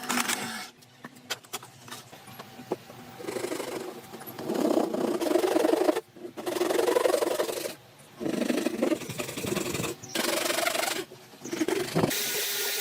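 Repeated rubbing or scraping strokes on wood, each lasting one to two seconds with short pauses between. The first few seconds are quieter, with a few light clicks.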